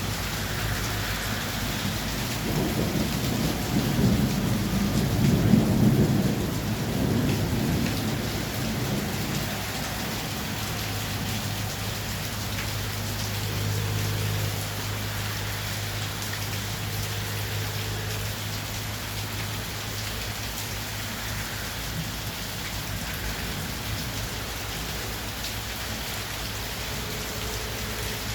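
Heavy rain falling steadily, with a long low roll of thunder that builds to its loudest about four to six seconds in and dies away by about ten seconds.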